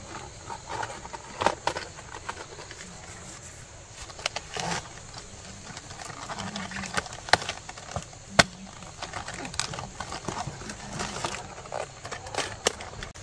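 Irregular sharp clicks and knocks, about half a dozen standing out, over a faint steady background; the loudest comes a little past the middle.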